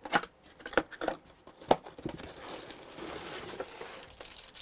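Cardboard packaging insert being pulled out of a product box and handled: about four sharp knocks and scrapes in the first two seconds, then a steady rustle of cardboard and packaging.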